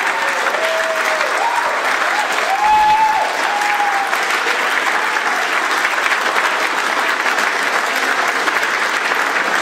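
A room full of people clapping steadily, with a few voices whooping and cheering in the first few seconds.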